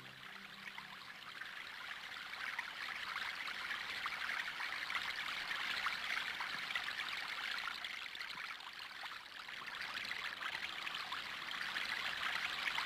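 Running water, a steady trickling stream with no music over it, growing louder after the first couple of seconds.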